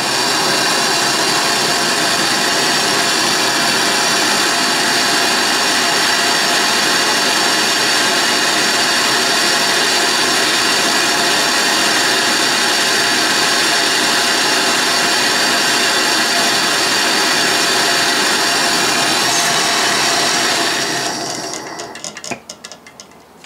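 MAP gas torch burning with a steady hiss, heating a small water-hardening tool steel key red hot for hardening. The torch is shut off about three seconds before the end, and the sound stops.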